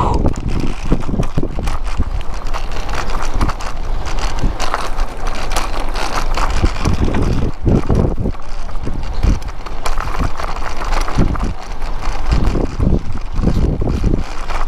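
Wind buffeting the microphone of a riding road cyclist, coming in irregular low gusts.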